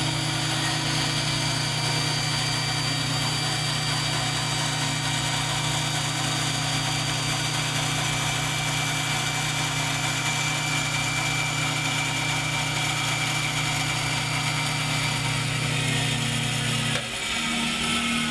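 Band saw with a 1/2-inch blade running with a steady hum while a wooden board is fed into the blade, cutting partway into it. The hum shifts abruptly near the end.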